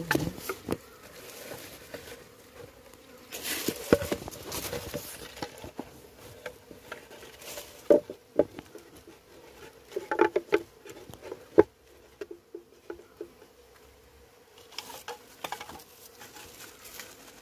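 Honeybees buzzing steadily around a wooden hive box while a comb is being hived, with scattered sharp knocks and rustles from hands handling the wooden frame and box.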